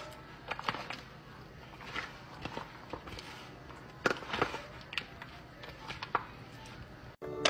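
Spoon tossing a chopped shrimp and lettuce salad in a disposable aluminium foil pan: irregular scrapes, clicks and rustles as the ingredients are stirred together.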